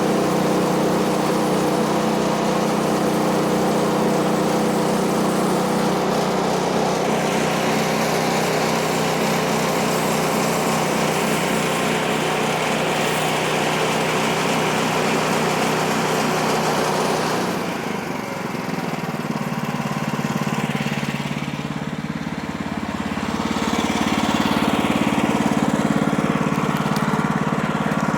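Woodland Mills HM130MAX bandsaw mill's gas engine running steadily, its band blade sawing through a log with a hissing rasp over the engine. About seventeen seconds in, the engine note drops lower and quieter and the hiss fades. Near the end it builds back up.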